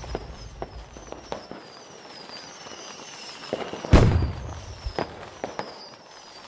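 Firework sound effects for an animated logo: scattered crackling pops of sparks, one loud bang about four seconds in as the sparks burst, and faint, short, high falling whistles repeating.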